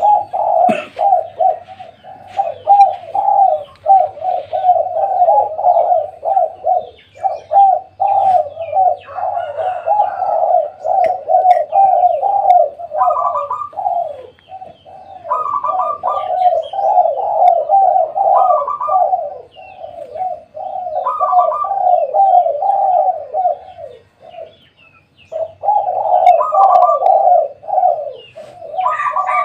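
Several spotted doves cooing together, their calls overlapping almost without a break, with a higher note from one bird recurring every two to three seconds.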